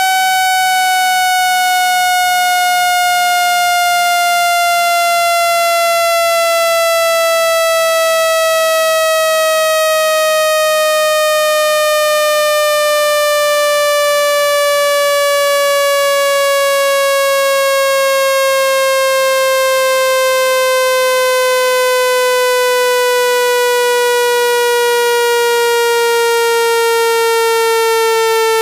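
Synthetic speaker water-eject tone: a loud, buzzy electronic tone sliding slowly down in pitch without a break. It is played through a phone speaker to shake water droplets out of it.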